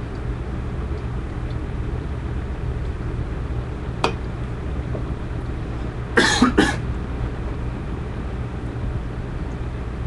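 A man who is smoking a cigarette coughs twice in quick succession just after six seconds in, over a steady low hum. A single sharp click comes about four seconds in.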